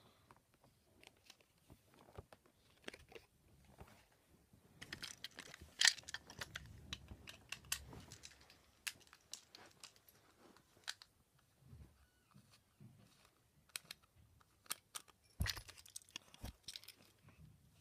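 Faint handling noises from a plastic Trackmaster toy engine as its battery compartment is opened and batteries are fitted: scattered clicks, taps and rustling, busiest in the middle, with a sharp click about six seconds in and another cluster of clicks near the end.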